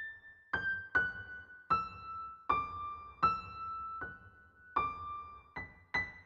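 Background music: a slow, gentle melody of single high notes, each struck and left to ring away, stepping down in pitch and then climbing back up.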